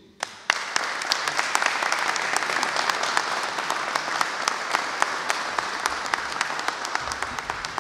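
Audience applauding, starting about half a second in and tapering off near the end.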